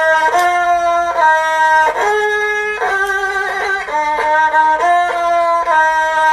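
Music: a slow melody of long held notes on a single instrument, changing note about once a second.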